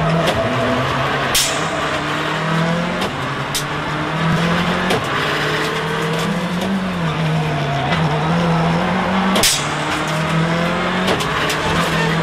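Mitsubishi Lancer WRC05 rally car's turbocharged four-cylinder engine heard from the cabin, its pitch repeatedly rising and falling as the driver accelerates and shifts through a sequence of bends. A few sharp cracks cut through it, the loudest about a second and a half in and near the end.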